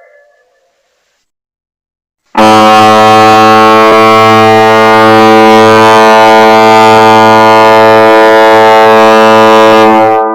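Tugboat whistle sounding one long, steady, deep blast of about eight seconds, starting a couple of seconds in and ringing out briefly as it stops near the end.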